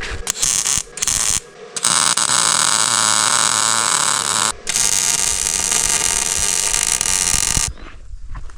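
Electric welding arc crackling and buzzing in bursts: two short tacks in the first second and a half, then two long beads of about three seconds each, each starting and stopping abruptly, as steel uprights are welded onto a cart frame.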